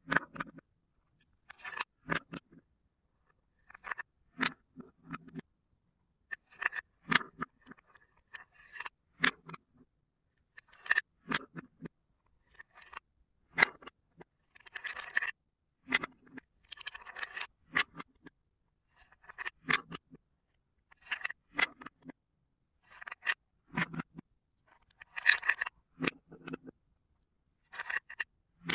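Wooden toy cups and balls clicking, knocking and scraping as a wooden scoop moves the balls among the cups: short, irregular clatters every second or so, with a few longer scrapes.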